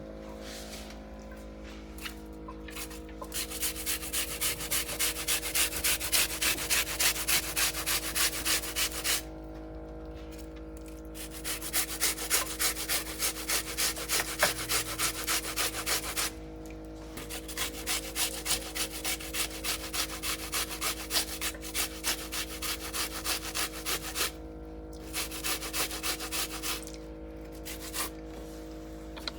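Food being rubbed by hand against a grater: rapid rhythmic scraping strokes in several runs of a few seconds each, broken by short pauses.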